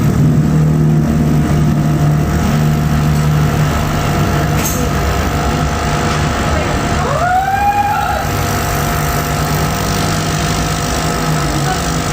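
Laser cutting machine running with a steady hum. About seven seconds in, a whine rises and then falls in pitch.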